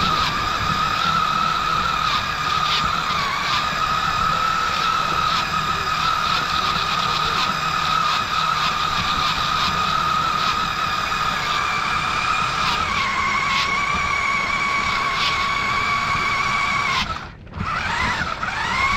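High-pitched whine of a toy RC monster truck's electric motor running at a steady speed across grass, over a low rumble with occasional clicks. Near the end the whine cuts out briefly, then rises again as the truck speeds back up.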